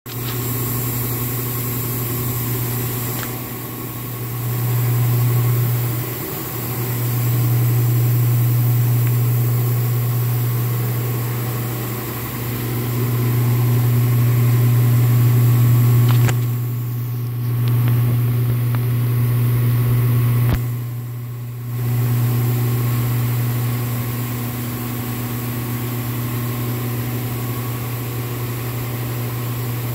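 Spray booth ventilation fans running with a steady low hum.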